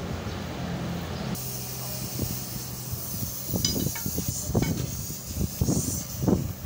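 Steady air hiss, with a run of sharp metal clinks and knocks from a steel tyre bar prying at a truck tyre and its steel rim.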